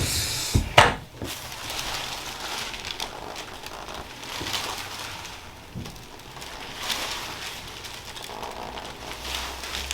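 A quick cluster of sharp cracks in the first second, the loudest last: joints releasing during a chiropractic adjustment. After that comes a steady crackling rustle.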